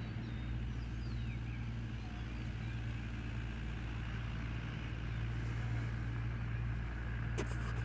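A steady low mechanical hum, with a few faint bird chirps in the first couple of seconds and a couple of sharp clicks near the end.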